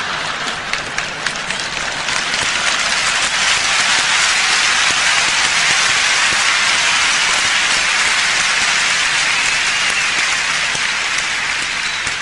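Audience applauding, building over the first few seconds and then holding steady.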